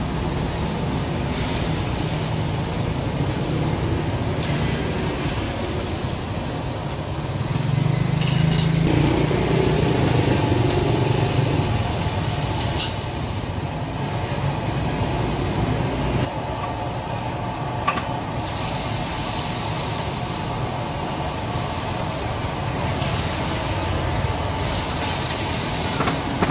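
Steady rumble of street traffic engines mixed with hot oil sizzling in a large deep fryer of battered bananas. A lower rumble swells for a few seconds near the middle. About two-thirds of the way through, a loud high sizzling hiss sets in, as fresh battered pieces fry in the oil.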